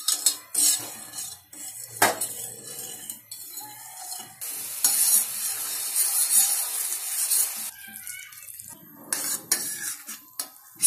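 Metal spoon stirring sugar syrup in a stainless steel saucepan, scraping and tapping against the pan. About four seconds in, a steady hiss of the syrup boiling takes over for a few seconds, then the tapping stirring resumes as the syrup bubbles into caramel.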